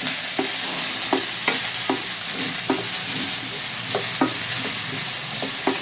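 Sliced bitter gourd sizzling in hot oil in a pan as it is stirred, a steady hiss with the spoon scraping and knocking against the pan about twice a second.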